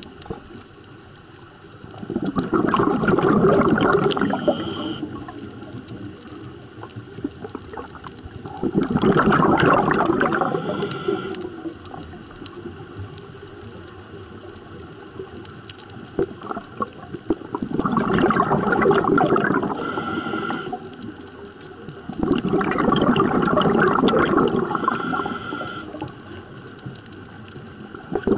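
Muffled underwater water noise heard through a camera's waterproof housing: a steady low hiss broken four times by rushing, bubbling surges of about three seconds each.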